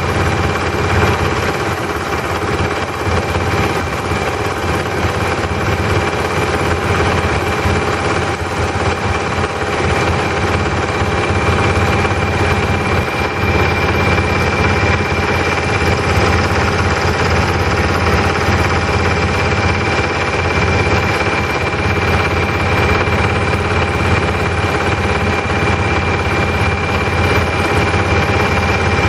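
A small boat's engine running steadily under way: a constant low drone with a thin steady whine above it.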